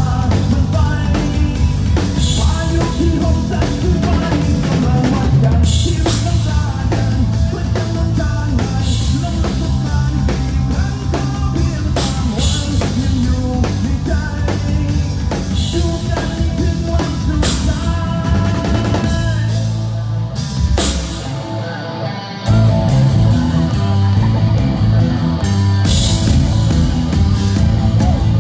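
A rock band playing live, with drum kit, bass and guitars at a driving beat; the drums and bass drop out briefly a little after twenty seconds, then the full band crashes back in.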